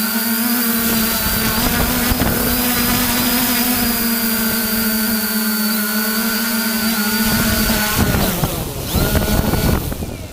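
Quadcopter drone's electric motors and propellers humming at a steady pitch, then changing pitch unevenly about eight seconds in as the throttle changes.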